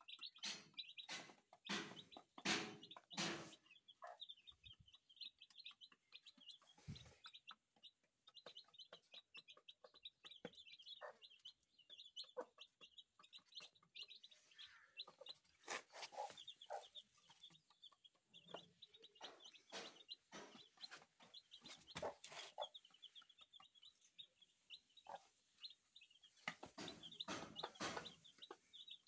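Two-day-old Aseel chicks peeping in a faint, rapid stream of short high chirps, with a mother hen clucking now and then.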